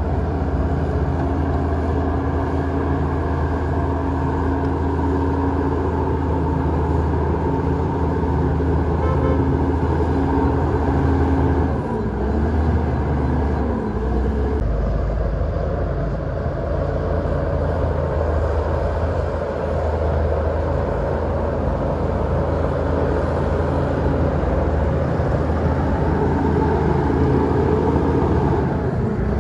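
Heavy earth-moving machine's diesel engine running steadily under load, its pitch dipping and recovering briefly about halfway through.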